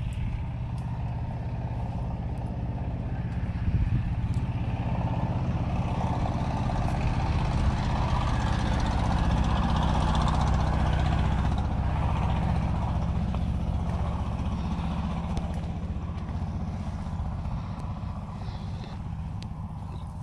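A motor vehicle's engine running with a steady low hum. It grows louder toward the middle and fades again.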